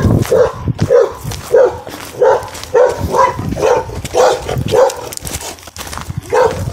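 Dog barking in a steady series, a little under two barks a second, with a short pause about five seconds in.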